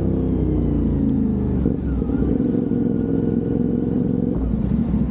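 CFMOTO 450NK's parallel-twin engine running on the road through an aftermarket Orion exhaust. The note breaks and changes briefly twice, about a second and a half in and near the end.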